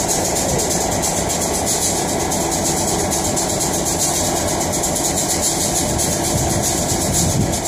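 Diesel locomotive's engine idling: a steady, even noise with a constant low hum.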